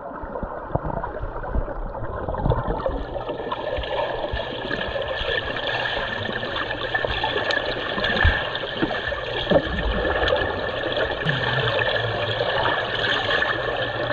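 Swimming pool water heard from a camera underwater: a muffled, steady rush and bubbling of water with a steady high tone, broken by a few dull knocks as swimmers move through the water, the clearest about eight and nine and a half seconds in.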